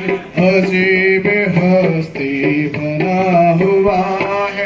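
Qawwali singing: voices holding long, wavering notes that slide from pitch to pitch in drawn-out phrases, with a short break between phrases.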